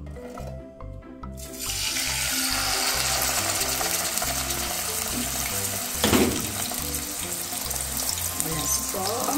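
Seasoned chicken thigh-and-drumstick piece sizzling in hot oil in a frying pan, a dense steady sizzle that starts about a second and a half in as the chicken goes in skin-side down. A short louder burst about six seconds in; background music with a steady beat runs underneath.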